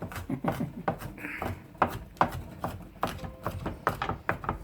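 Kitchen knife chopping garlic finely on a cutting board: quick, irregular strokes, about three a second.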